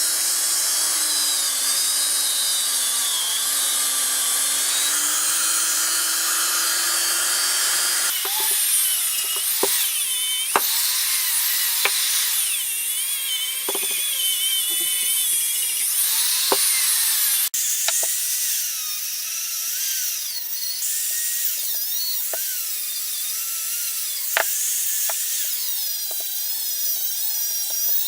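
High-speed rotary power tool running continuously as it works a part, its high whine wavering up and down in pitch. The sound changes abruptly twice, about 8 s and 17–18 s in.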